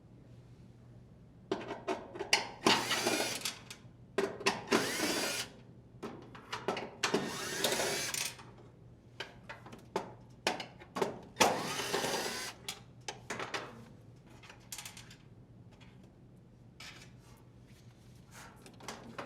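Drill driver backing out the four screws that hold a dryer's motor plate: four short whirring runs of about a second each, the pitch sliding as the motor speeds and slows. Clicks and clatter of screws and parts being handled come between the runs.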